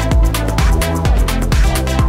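Background electronic music with a steady beat, its kick drum landing about twice a second.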